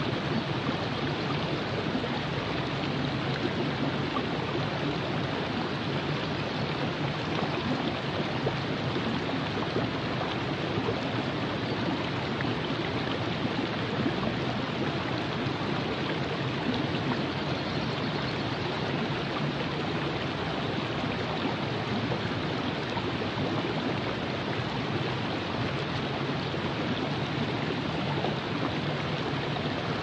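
Virgin River flowing: a steady rush of running water, even throughout.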